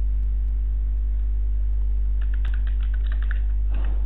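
Computer keyboard typing: a quick run of key clicks from about two seconds in, over a loud, steady, low electrical hum.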